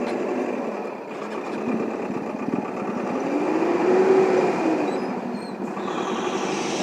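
Vehicle engines running in a traffic jam on a muddy track, with one engine revving up and easing back down about three to four seconds in.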